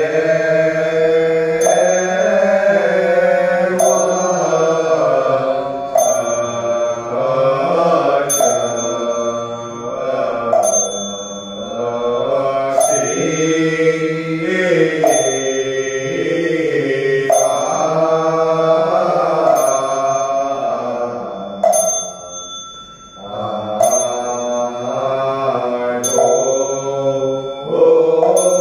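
Voices chanting a Mahayana Buddhist recitation in long sustained notes, with a sharp struck beat about every two seconds, likely from a red wooden fish kept time on the table.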